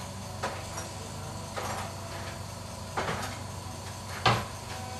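Four light clicks and knocks of small repair tools and phone parts being handled on a workbench, the loudest near the end, over a steady low hum.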